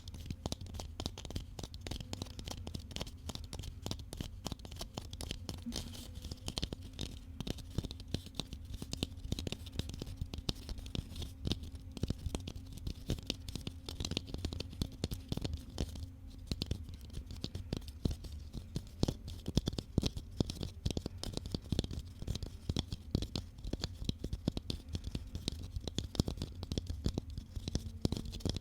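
Fast, irregular light tapping, many small taps a second with some scratching among them.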